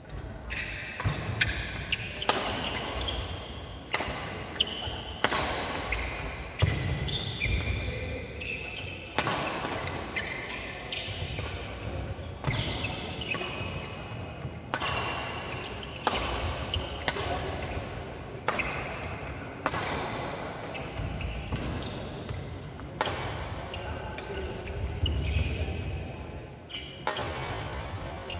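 Badminton rackets hitting a shuttlecock again and again through doubles rallies, a sharp crack about every second or so. Between the hits come short squeaks of sports shoes and footfalls on the wooden court floor.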